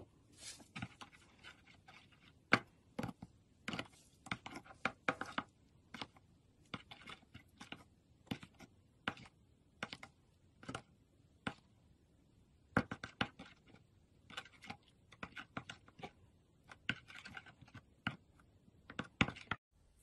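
Slime being pressed and stirred with a wooden craft stick in a plastic tub, making small, sharp, irregular clicks and pops, several a second in clusters.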